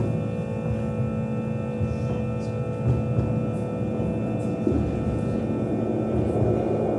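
Droning experimental music: a dense low rumble with several steady ringing tones held above it, unchanging throughout.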